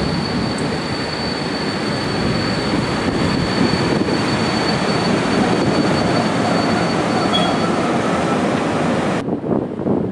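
PKP Intercity EP07 electric locomotive and its passenger coaches passing close by under a station train shed: a loud steady rumble of wheels on rail with a thin high whine that fades out after about seven seconds. About nine seconds in the sound cuts abruptly to wind on the microphone.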